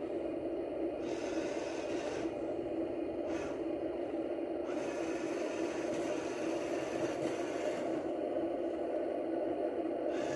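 Small electric motors and gearboxes of remote-control toy construction vehicles whirring steadily, with a higher, brighter whine cutting in about a second in, briefly a little past three seconds, and again from about five to eight seconds in as the motors work.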